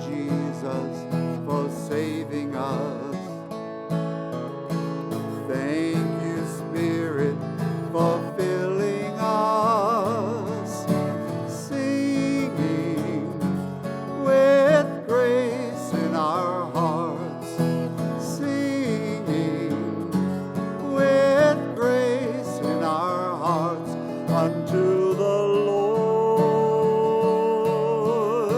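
Acoustic guitar strumming chords, with a melody line that wavers in pitch over it.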